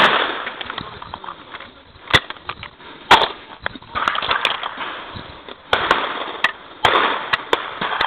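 The echo of a shotgun shot dies away over the first two seconds, then come sharp metallic clicks and clacks with handling rustle from a break-action shotgun being opened and reloaded.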